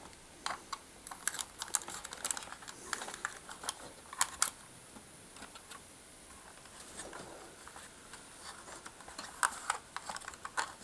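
Light, scattered clicks and rustles of insulated wires being pushed and fed under the motor inside a plastic vacuum cleaner base, with a quieter spell in the middle.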